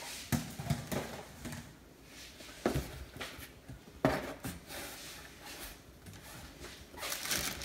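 Parts being packed into a cardboard box: a few soft thuds as items are set down against the cardboard, with plastic wrapping rustling.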